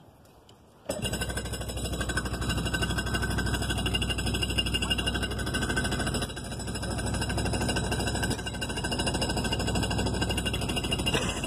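Arctic Cat Tigershark 770 jet ski's two-stroke engine starts suddenly about a second in and runs steadily on its trailer, out of the water, with a brief dip in level about halfway through.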